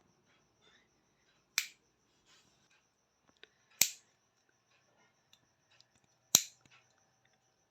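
Handmade forged nail clipper snapping shut three times, sharp clicks about two to two and a half seconds apart.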